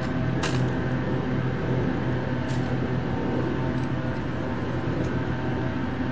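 Steady low drone of background noise, with one sharp click about half a second in and three fainter clicks spread over the next few seconds as a rifle is handled during a guard's rifle inspection.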